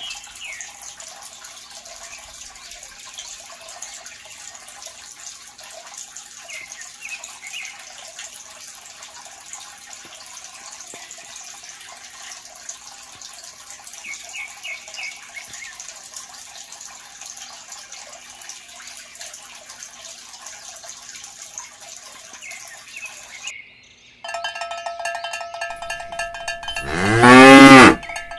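A cow moos once, long and loud, near the end, over steady ringing tones that begin just before it. Before that there is a faint steady background with a few short chirps.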